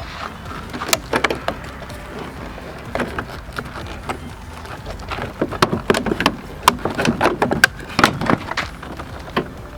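Irregular clicks and knocks of hands and tools handling plastic door trim and switch parts, coming faster and in clusters after about five seconds.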